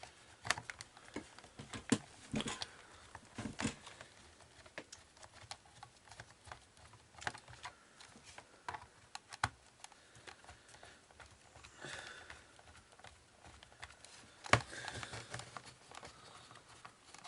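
Scattered light clicks and knocks of a screwdriver being worked at the screws of a plastic clock radio casing, with one sharper knock about two-thirds of the way through.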